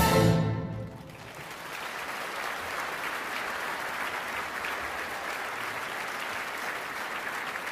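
An orchestra's closing chord sounds for about the first second and breaks off. A theatre audience then applauds, building over the next second or two and holding steady.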